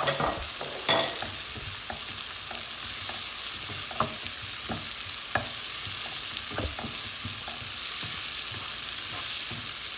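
Onion, tomato and spice masala sizzling in oil in a pan while a spoon stirs it, with irregular clicks and knocks of the spoon against the pan.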